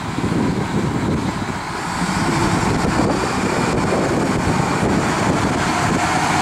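Diesel engine of a stone block handling forklift loader running as the machine drives with a stone block on its forks, getting louder about two seconds in as it comes closer.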